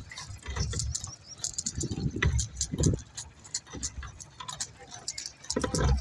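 Stone chippings on a fresh bitumen road layer clicking and scraping as they are worked by hand, with a few dull low thumps.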